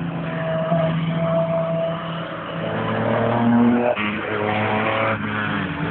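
Peugeot 205 turbo's engine running hard on track, its note climbing and then dropping sharply twice, about four and five seconds in, as if at gear changes.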